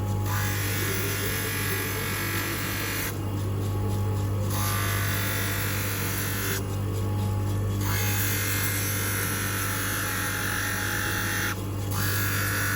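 Manual three-stone lens edger grinding a bluechromic single-vision spectacle lens. The motor hums steadily, while the grinding hiss of the lens against the spinning stone stops and starts again three times as the lens is lifted off the wheel and pressed back.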